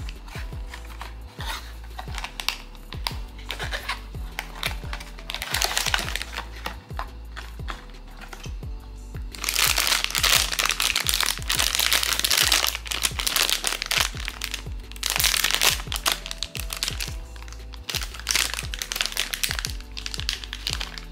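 Crinkling and rustling of a foil blind-box pouch being handled and opened, in several bursts with the longest about halfway through, over background music with a steady beat.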